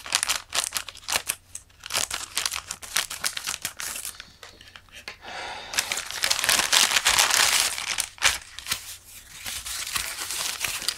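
Scissors snipping through a plastic courier mailer, then the bag crinkling loudly as it is pulled open and the foam wrapping inside is handled.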